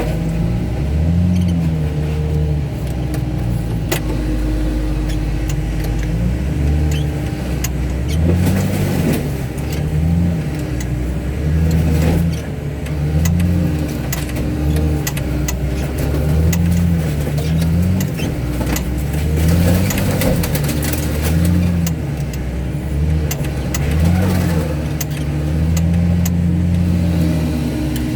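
Heavy diesel machinery crushing a car body, the engine revving up and down over and over as the hydraulics work under load. Sharp metal cracks and crunches break in now and then, most of all about a third of the way through and again past the middle.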